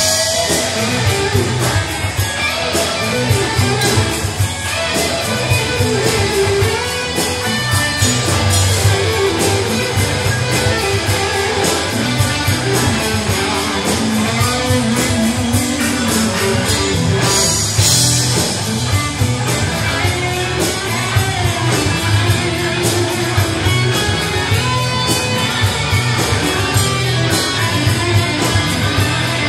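Live blues-rock band playing an instrumental passage without vocals: electric guitars over bass and drums.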